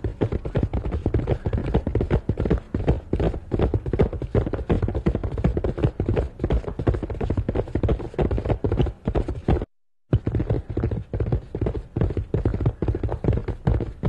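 Horse galloping: a fast, continuous run of hoofbeats that breaks off for a split second about two-thirds through.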